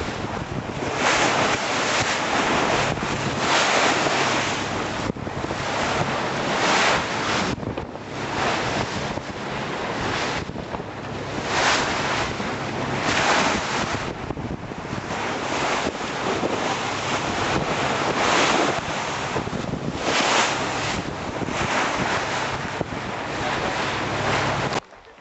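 Wind buffeting the microphone and sea water rushing and splashing along the hull of a moving boat, swelling in surges every second or two, over a low steady engine hum. It cuts off abruptly near the end.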